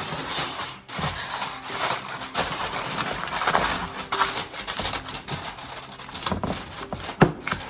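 Crinkling and rustling of wrapping being pressed tightly around sliced buttered potatoes, with many small crackles and one sharp click near the end.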